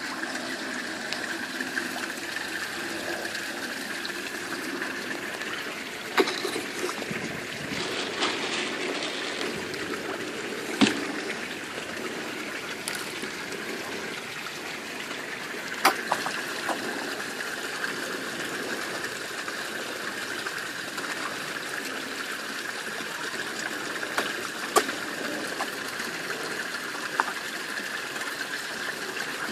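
Water trickling steadily into a garden pond, with a few sharp slurps as fish take floating food at the surface.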